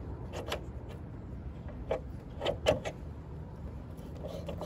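A few light clicks and knocks from hands working at a scooter's front wheel and brake caliper, the loudest a little under three seconds in, over a steady low rumble.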